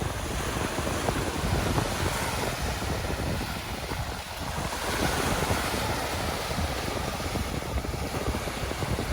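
Sea surf washing onto the beach, with wind buffeting the microphone.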